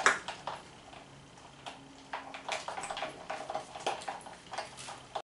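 Scattered soft clicks and knocks of hands handling a burger and its plate as the burger is picked up, starting about two seconds in.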